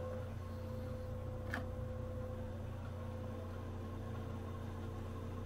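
Steady low mechanical hum with faint steady tones over it, and one faint click about a second and a half in.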